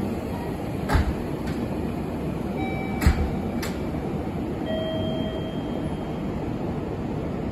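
JR Kyushu 817 series electric train standing at the coupling point during uncoupling, with a steady hum from the stationary cars. Two sharp clunks come about one and three seconds in, each followed by a weaker knock, and there are brief faint tones around three and five seconds in.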